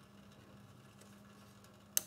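A faint steady hum, with one sharp click near the end.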